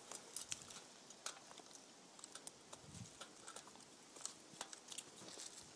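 Near quiet, with scattered faint clicks and light rustling as a mountain bike tire and tube are handled on the rim.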